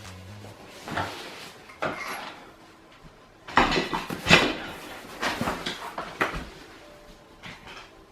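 Metal and plastic parts of a gaming chair knocking and rattling as they are handled and fitted together during assembly: a few separate knocks, then a busier run of clatter about halfway through.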